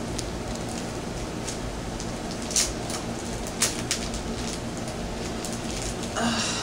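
A small clear plastic packet being handled and opened: a few sharp crinkles and clicks, the loudest about two and a half and three and a half seconds in, over a steady background hiss.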